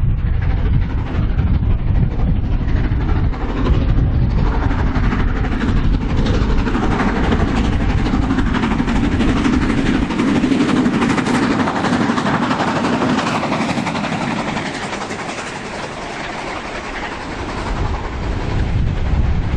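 Steam-hauled passenger train behind LMS Pacific 46233 Duchess of Sutherland passing at a distance, its wheels clattering along the rails, loudest in the middle and easing off near the end. Wind buffets the microphone, heavily at the start.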